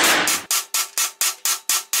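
Hammer blows on a MIG-welded steel T-joint in a destructive break test. One strike rings out, then about half a second in a fast, even run of sharp metallic strikes follows, about six a second.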